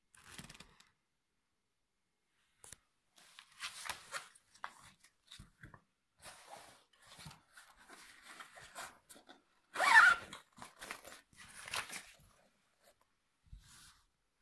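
Paper rustling and handling noises in short, irregular scratchy bursts as an instruction leaflet is folded and set down, with the loudest rustle about ten seconds in.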